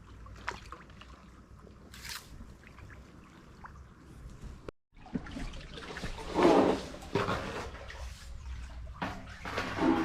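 Water trickling and dripping off a kayak paddle, with two louder splashes of paddle strokes in the second half.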